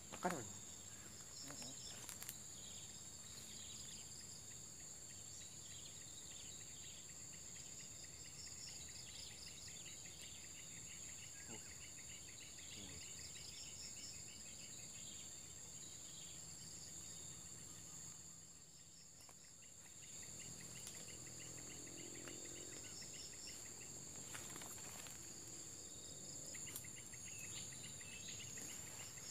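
Insects droning steadily at a high pitch, with rapid pulsing chirps over the top; they ease off briefly about two-thirds through. A single short thump right at the start.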